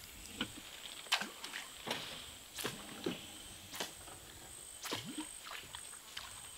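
Topwater lure being twitched back across the water surface, popping and splashing in short irregular strokes about once a second.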